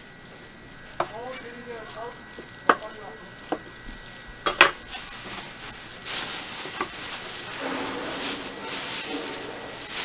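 A few sharp knocks, the loudest a double knock near the middle, then from about six seconds in the crinkling rustle of a thin plastic bag as gloved hands pack cut pork offal into it.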